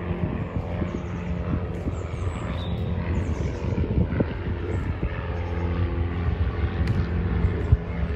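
A steady low engine drone, growing somewhat stronger near the end, over irregular crunching footsteps on gravel.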